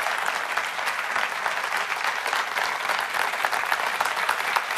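Large audience applauding, many hands clapping at once, steady and sustained.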